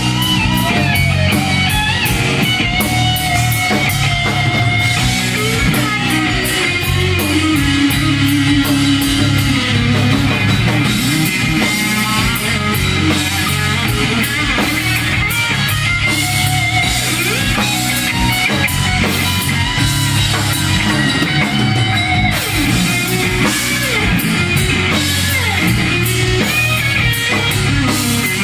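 Live southern rock band playing an instrumental section: electric lead guitar bending notes over bass and a steady drum kit beat.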